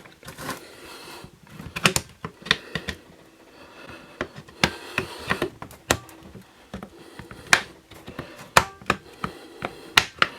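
Irregular light metallic clicks and knocks of drum brake shoes and their return springs being handled and pressed down onto the brake backing plate of a BMW R 51/2 simplex brake.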